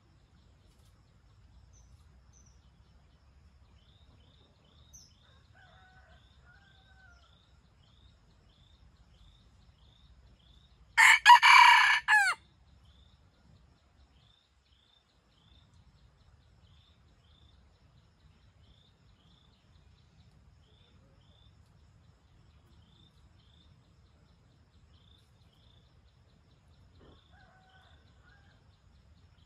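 A rooster crows once, a short crow of about a second and a half near the middle. Faint, steady chirping repeats about twice a second throughout.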